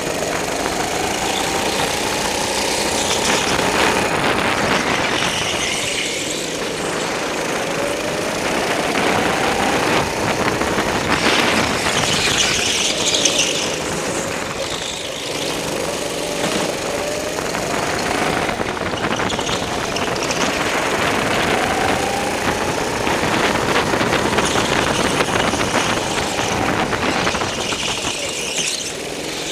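Go-kart engine heard from on board through several corners: its note climbs each time the kart accelerates out of a turn and falls back between, about five times. Tire squeal and scrub come in bursts as the kart slides through the turns.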